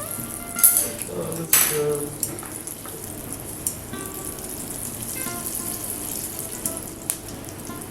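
Food sizzling as it fries in oil in a pan: a steady crackling hiss, with two louder clatters in the first two seconds.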